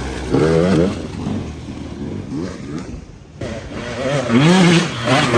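Enduro dirt bike engines revving, pitch climbing in a burst early on and again, loudest, about four and a half seconds in, with a quieter lull in between.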